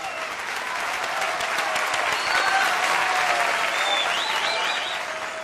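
Live audience applauding, with a few shouted voices and a wavering whistle about four seconds in; the clapping builds and then fades out toward the end.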